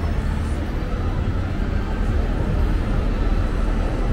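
Steady low rumble of city traffic, with no single event standing out.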